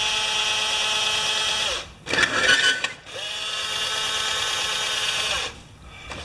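Small geared electric motor of a scale electric fire truck whining as it swings the boom round. It runs for about two seconds, breaks off with a brief rattle, then spins up again and runs for about two and a half seconds before winding down.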